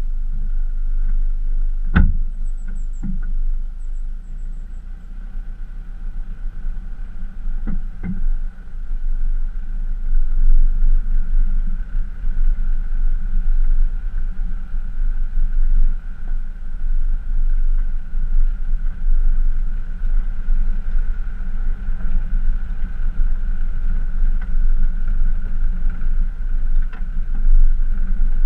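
Pickup truck driving along a rough dirt track towing an off-road camper trailer: a steady low engine and road rumble, with sharp knocks as it goes over bumps about two and eight seconds in.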